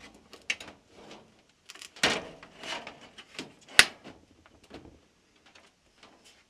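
A Whirlpool Duet dryer's replacement control board assembly is slid into place, with plastic scraping and knocking against the dryer's sheet metal, a longer scrape about two seconds in and a single sharp click nearly four seconds in.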